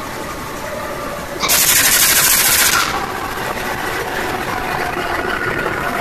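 Diesel engine of a CC204 diesel-electric locomotive running steadily. About one and a half seconds in, a loud hiss of air cuts in for over a second and stops abruptly.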